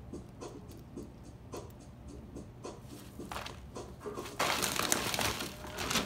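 Cockatoo rummaging in an opened bag of bird seed: scattered small clicks and rustles of seed and bag, with a louder stretch of rustling about four and a half seconds in.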